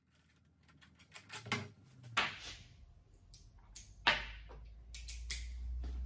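Scattered metal clicks and clinks of a socket wrench working the bolts out of a manual gearbox's shifter housing, with a low hum coming in about four seconds in.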